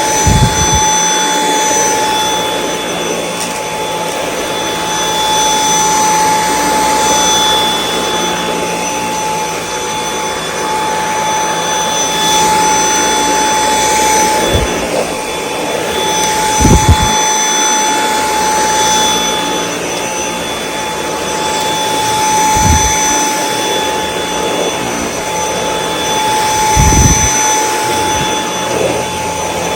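Dyson V8 Extra cordless vacuum cleaner running steadily: a high motor whine over airflow hiss as it vacuums carpet and floor. About five brief low thumps are spread through it.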